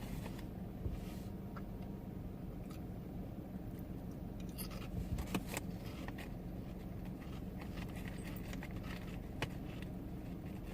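Steady low hum inside a car cabin, with a few faint clicks and rustles over it.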